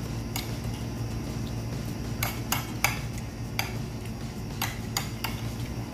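Metal spoon clinking against a bowl while eating: a run of short, sharp clinks, most of them from about two seconds in to near the end, over a steady low hum.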